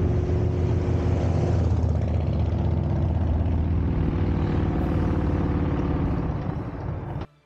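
Harley-Davidson V-twin motorcycle engines running at road speed, a steady low drone. It eases off over the last couple of seconds, then cuts off suddenly near the end.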